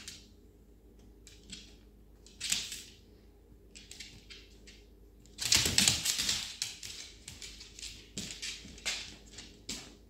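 Claws and paws of a cat and a dog clicking and scrabbling on a hard wood-look floor as they scuffle, with a loud burst of scrabbling about halfway through.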